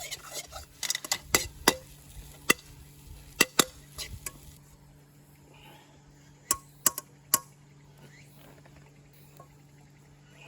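Sharp metal clinks of utensils against cookware: a cluster of about eight in the first four seconds, then three more between about six and a half and seven and a half seconds in, each with a short ring.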